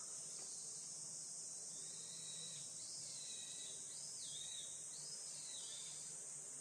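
Steady high-pitched drone of summer insects, with a bird singing a warbling, rising-and-falling song over it from about two seconds in to near the end.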